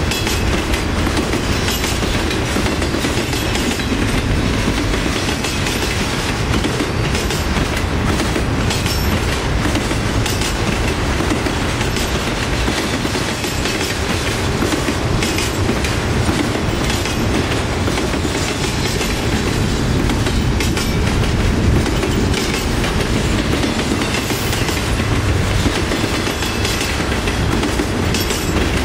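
Double-stack intermodal freight cars rolling past close by at speed: a steady loud rumble of steel wheels on rail with repeated clicks as the wheels cross rail joints.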